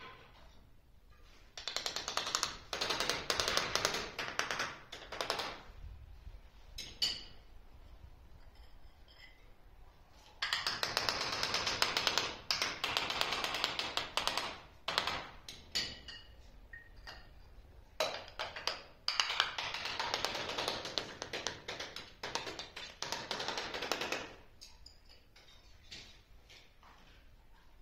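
Metal hand tool scraping and tapping rapidly against ceramic tile and tile adhesive in three bursts several seconds long, with quieter pauses between.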